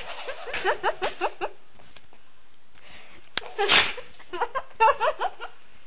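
A woman's high-pitched giggling laughter in two quick runs of short squeals, each rising in pitch, with a loud breathy burst between them a little past halfway.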